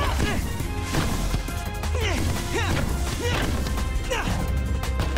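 A crash-like impact sound effect as a basketball is slammed through the hoop in a dunk, with a second hit about a second later. Soundtrack music with a heavy bass plays throughout.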